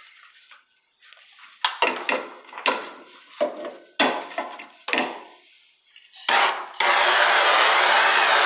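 Several knocks and clatters of the gas torch being picked up and handled. Near the end a brief hiss of gas, then the torch lights with a pop and settles into a steady, loud hiss of its flame.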